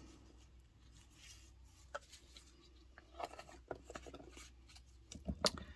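Faint, scattered light taps and scrapes from small craft supplies being handled during resin colouring work.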